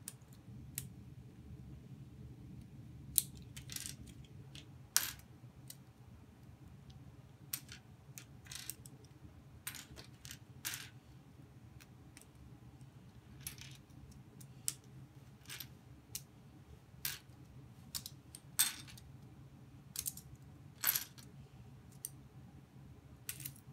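Plastic LEGO pieces clicking and clattering as they are handled and pulled apart, in irregular sharp clicks.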